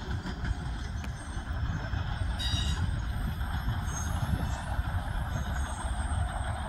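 Steady low rumble of a running vehicle heard from inside its cab, with a brief high-pitched squeal about two and a half seconds in.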